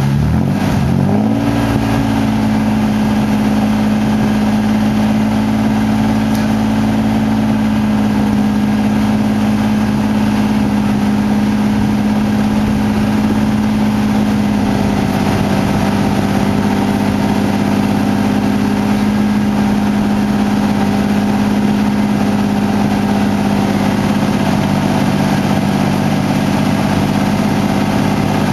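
2002 Ford Ranger's 4.0 L SOHC V6 running at the tailpipe while it burns off a Sea Foam treatment. Its pitch rises quickly about a second in, then holds steady at a raised speed.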